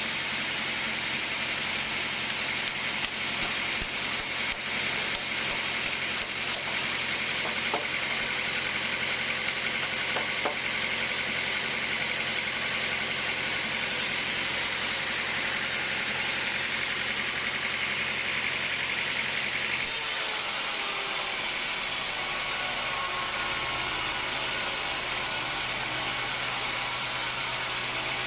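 Sawmill machinery running steadily with a hissing noise and a low hum; the sound changes abruptly about twenty seconds in.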